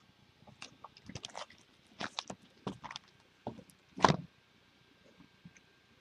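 Handling noises: a quick run of clicks and crinkly rustles, then a louder knock about four seconds in, as a shrink-wrapped cardboard card box is handled and set down.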